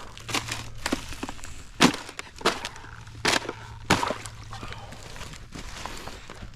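Ice cracking and breaking in sharp, separate snaps, about six over the first four seconds, with a low steady hum underneath that fades out about two-thirds of the way through.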